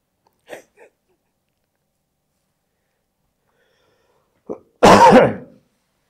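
A man sneezes once into a handkerchief about five seconds in: a short catch of breath, then one loud burst that fades within about half a second.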